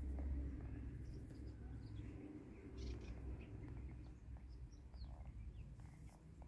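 Faint, scattered short chirps of small birds over a low, steady background rumble, the rumble loudest at the start.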